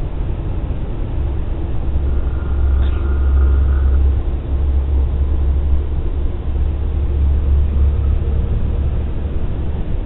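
Steady low rumble of a car's engine and tyres, heard from inside the cabin while driving through a road tunnel in traffic.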